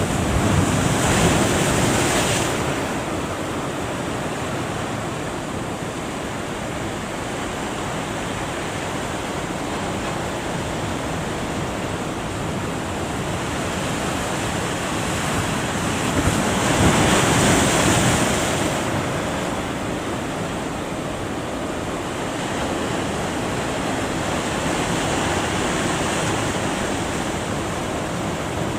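Big ocean waves breaking at a river mouth: a continuous wash of surf, with two louder surges as waves break, one about a second in and one a little past halfway.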